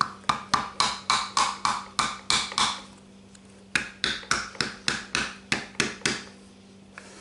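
A hammer tapping on an old oil seal used as a driver, seating a new flywheel-end crankshaft oil seal into a VW engine case. The quick, ringing taps come about four a second in two runs, with a pause of about a second in the middle.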